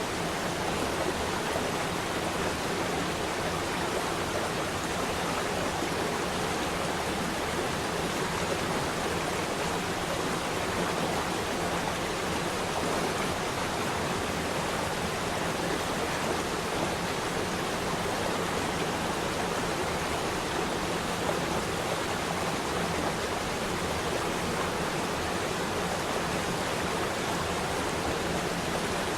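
Flowing water rushing steadily and without a break, a stream or small waterfall.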